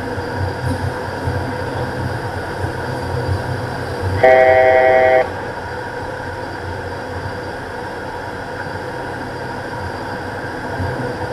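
Steady cabin drone of a Beechcraft King Air twin-turboprop on final approach. About four seconds in, a cockpit aural alert sounds as one steady horn-like tone for about a second, louder than the drone.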